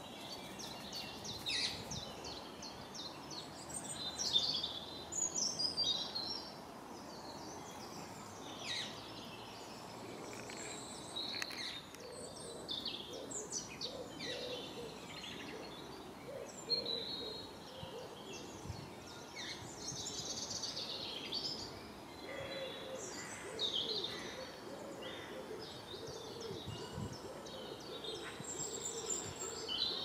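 Wild birds singing and chirping, many short calls and trills overlapping. From about halfway through, lower repeated calls sound underneath.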